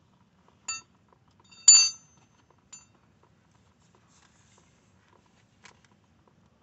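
Hard metal parts clinking together with a short bright ring. There is one clink just under a second in, a louder one about a second later, and a smaller one near three seconds, followed by a few faint taps.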